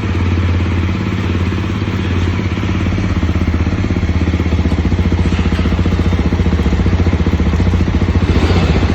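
Jawa Bobber motorcycle's single-cylinder engine running at a steady speed in an even pulsing rhythm, a little louder from about halfway through.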